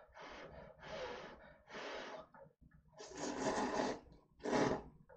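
A person slurping sauced instant cup noodles with chopsticks: five slurps, the longest and loudest about three seconds in.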